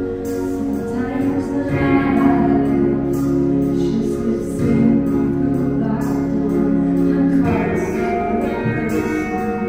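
A woman singing long held notes into a microphone over an instrumental accompaniment, the chords changing about every three seconds.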